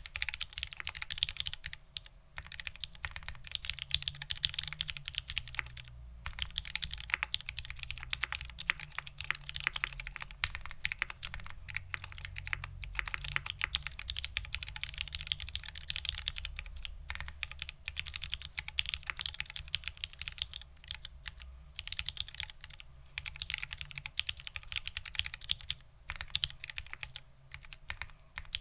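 Continuous fast typing on a custom 60% mechanical keyboard with Cherry Vintage Black linear switches, a POM plate and ABS doubleshot keycaps: dense runs of key clacks broken by brief pauses every few seconds.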